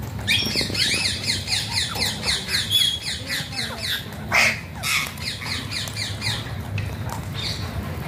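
A flock of parakeets squawking: a rapid run of harsh, repeated falling calls, about five a second, then a louder single call about halfway through, followed by another run.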